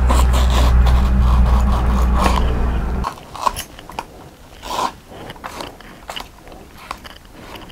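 A knife cutting firm raw mango into slices and small cubes, with scattered crisp crunches and clicks of the blade. A loud, steady low rumble covers the first three seconds and cuts off suddenly.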